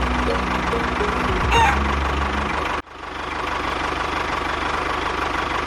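An engine idling steadily with a low, even rumble. It cuts off abruptly about three seconds in and is followed by a steady, hissier engine hum.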